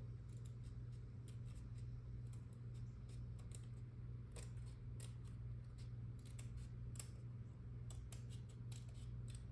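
Small scissors snipping excess paper off a model-kit decal sheet: a run of faint, irregular snips over a steady low hum.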